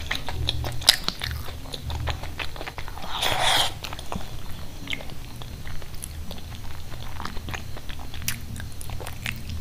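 Close-miked wet chewing and mouth smacking of a person eating khichdi with curry by hand, full of small clicks, with a short hissing rush about three seconds in.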